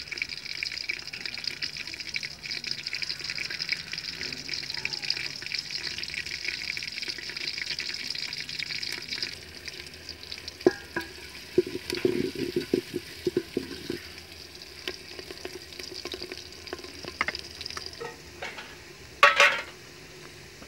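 Sliced onions sizzling and crackling in hot ghee in an aluminium pot, being fried until golden. The sizzle is strong at first and softer after about nine seconds. A few knocks come midway, and a louder one comes near the end.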